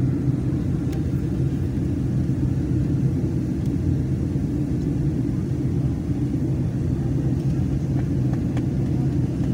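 Steady low rumble of an airliner in flight heard from inside the cabin: the even drone of the engines and the air rushing past the fuselage.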